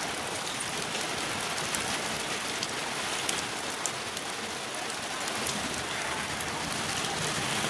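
Steady rain falling on wet concrete pavement, an even hiss with scattered small drop ticks.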